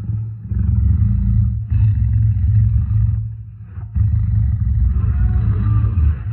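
Deep, rumbling roars or growls from a large animal, in long stretches with a short break a little past the middle.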